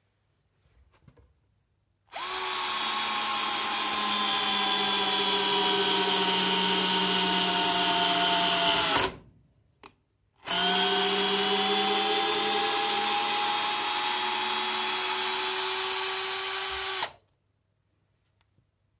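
Parkside PBSA 12 D4 12 V cordless drill, with a brushed motor, driving a long wood screw into a wooden beam. Its motor whine slowly drops in pitch as it loads up over about seven seconds, then stops. After a click and a short pause it runs again for about six and a half seconds, its pitch slowly rising.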